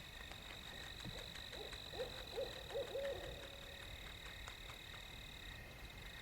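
Barred owl hooting: a quick run of about six hoots, the last one drawn out, about a second to three and a half seconds in.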